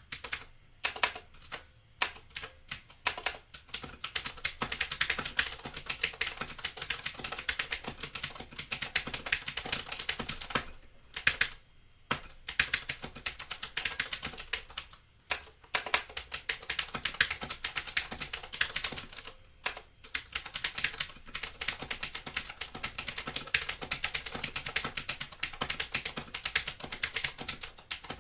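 Steady fast typing on a Razer BlackWidow 2013 mechanical keyboard with clicky Cherry MX Blue switches and ABS keycaps: a dense stream of sharp key clicks, broken by a few brief pauses.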